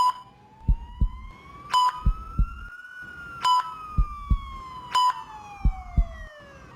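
Synthetic ICU patient-monitor sound effect: a short, high beep about every second and a half over paired heartbeat thumps. A gliding tone rises slowly, like a siren, for about three seconds and then falls away.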